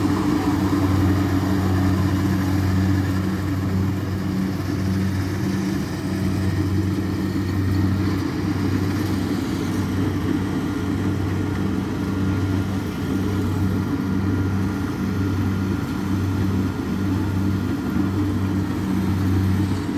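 Kubota DC60 combine harvester's diesel engine and threshing machinery running steadily while it cuts rice. It makes a low drone with a slow throb about once a second.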